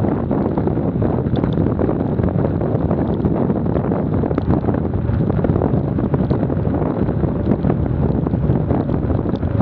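Steady rush of wind buffeting the microphone of an action camera mounted outside a car at highway speed, mixed with road noise from wet tarmac.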